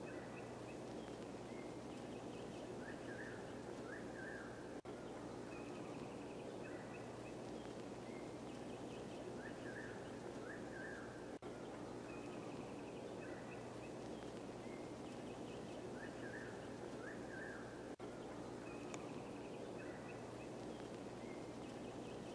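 Forest ambience: small birds calling in short chirps over a steady background hiss, the same stretch of birdsong repeating about every six and a half seconds as a loop.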